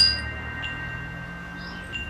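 Metal wind chimes ringing: a clear strike right at the start whose several high tones ring on and slowly fade, with a few lighter touches later on.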